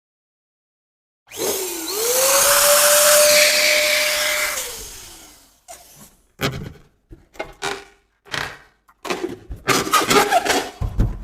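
Electric balloon pump running: a rush of air with a steady motor whine that spins up about a second in, holds for about three seconds, then winds down and fades. It is followed by a string of short rubbery squeaks and rustles from the balloon being handled.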